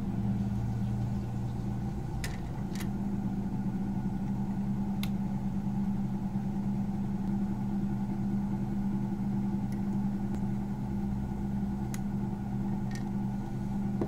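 A steady low machine hum, with a few faint, sharp ticks scattered through it.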